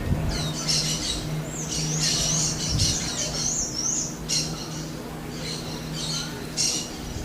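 Birds calling: repeated short, high-pitched chirps and a quick zigzag trill a couple of seconds in, over a faint steady low hum.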